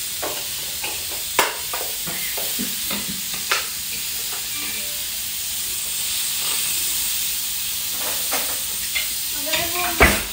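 Persimmon pieces sizzling steadily on a hot ridged grill pan as they are lightly seared, with a few sharp clicks of a metal spatula against the pan, the loudest near the end.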